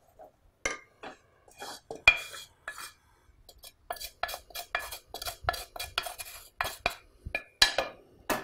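Wooden spatula scraping and knocking against an earthenware pot as ragi flour is stirred into hot jaggery syrup to make laddu dough. The knocks are scattered at first and come quicker and steadier from about four seconds in.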